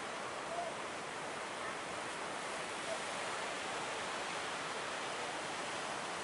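Big ocean waves breaking, heard as a steady, unbroken rush of surf with no single crash standing out.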